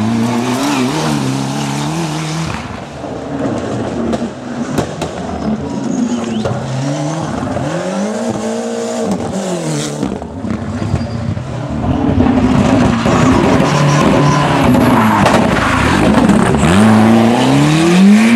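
Ford Sierra Cosworth Group A rally car's turbocharged 2.0-litre Cosworth YB four-cylinder driven hard, its revs climbing and dropping again and again through gear changes and corners. It is loudest near the end, where the revs rise steeply.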